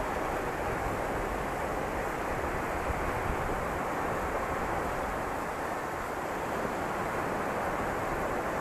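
Steady rushing of wind buffeting the microphone, mixed with the wash of sea surf.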